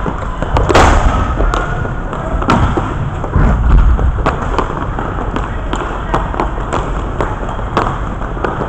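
Inline hockey play at the goal: a rapid run of sharp clacks and knocks from sticks, puck and skates on the rink floor, with one very loud knock about a second in and heavy thuds around the middle.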